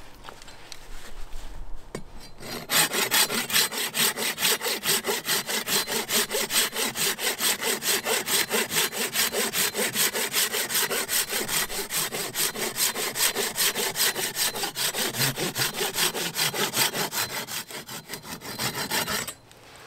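Hand pruning saw cutting through a small branch with quick, even back-and-forth strokes, about four a second. It starts about three seconds in and stops just before the end.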